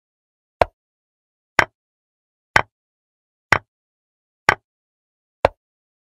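Chess piece-move sound effect from a digital board replay: six short, sharp wooden-sounding clicks, about one a second, one for each move played.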